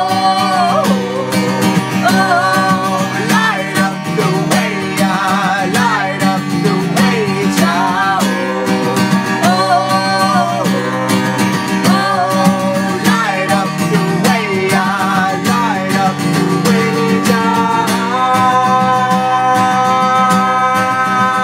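A woman and a man singing together over an acoustic guitar, with wavering, drawn-out vocal lines and a long held note near the end.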